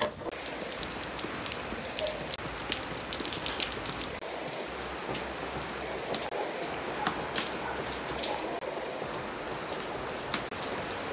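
Steady rain falling, with many individual drops striking close by as short sharp clicks over an even hiss.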